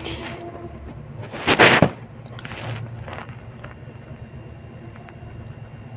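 Handling noise as a bike helmet is turned over in the hand: a short rustle about a second and a half in and a fainter one about a second later, over a steady low hum.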